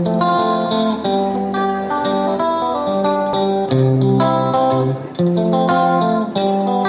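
Instrumental background music: a melody of plucked guitar notes over a steady accompaniment.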